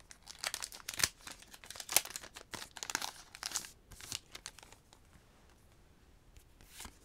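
A Pokémon booster pack's foil wrapper crinkling as it is torn open by hand, in a run of crackly rustles that die down to faint handling about five seconds in.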